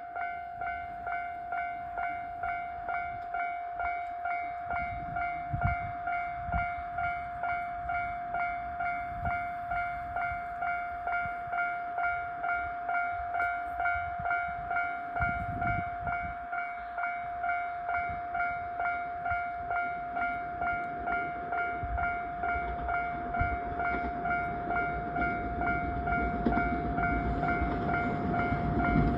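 Electronic level-crossing warning bell ringing a steady, even two-tone-free ding at just under two strokes a second. A train's rumble builds beneath it over the last several seconds as the train approaches the crossing.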